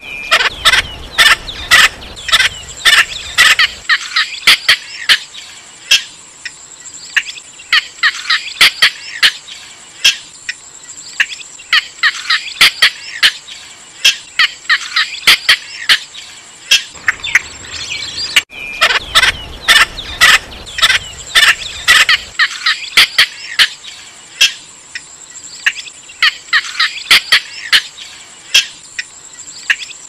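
Recorded cinnamon bittern calls played as a hunting lure: bursts of rapid, sharp, staccato notes repeating throughout, over a steady high tone. The recording briefly cuts out a little past halfway and starts the sequence again.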